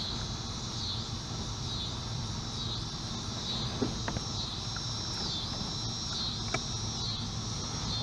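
A steady, high-pitched insect chorus pulsing in a regular rhythm a little faster than once a second, over a low steady hum, with a few faint clicks.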